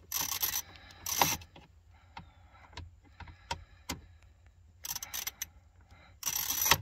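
Hand socket ratchet on an extension clicking in about four short spells, with single clicks between them, as it backs out a door trim panel screw.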